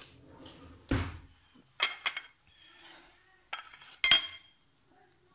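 Cutlery clinking against ceramic dishes: a duller knock about a second in, then several sharp clinks, the loudest about four seconds in.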